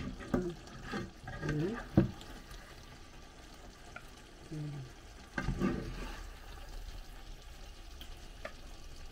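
A plastic spatula scooping stew out of a nonstick frying pan onto a ceramic plate: sharp knocks and scrapes in the first two seconds, then softer scraping. Under it the sauce sizzles faintly in the pan.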